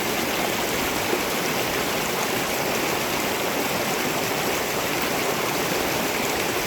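Glacier-fed mountain torrent running steadily: a dense, even rush of water with no let-up.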